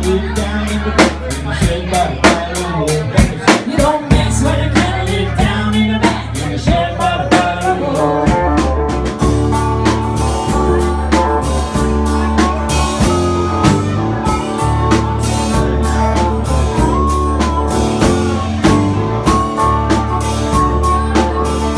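Live blues band playing an instrumental passage: a drum kit keeps a steady beat under electric and acoustic guitars, with long held notes coming in about a third of the way through.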